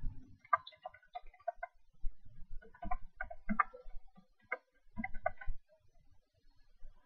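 Irregular runs of light clicks and taps, in small bunches with short pauses between them, along with a few low knocks.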